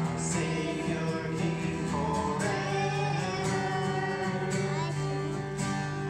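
Acoustic guitar accompanying a man and a young boy singing a gospel duet.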